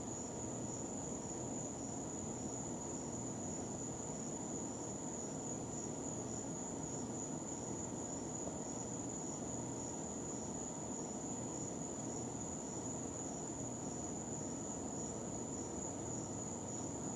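Steady background hiss and hum with a constant high-pitched whine over it, unchanging throughout; no chick peeps are heard.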